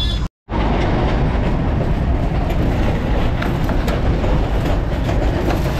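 Darjeeling Himalayan Railway toy train coach running, heard from inside by an open window: a steady loud rumble and rattle of the wheels on the narrow-gauge track, with scattered faint ticks. The sound cuts out completely for a moment just after the start.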